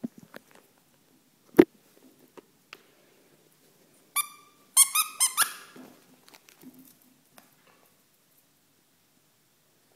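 A plush dog toy's squeaker squeaking five or six times in quick succession, four to five and a half seconds in. A sharp knock comes about a second and a half in, with light scuffling around both.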